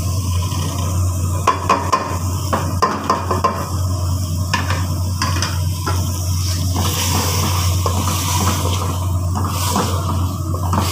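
A spoon stirring and scraping thick meat masala and fried greens in a metal cooking pot, with irregular knocks of the spoon against the pot, over a steady low hum.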